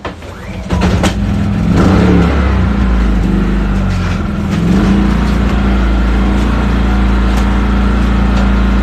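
An engine starts about a second in and settles into a steady, loud run with a low hum.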